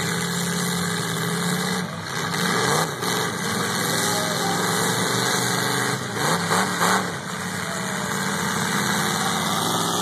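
Several demolition derby cars' engines running and revving, with a few loud knocks from the cars hitting each other, about two seconds in and again around six to seven seconds in.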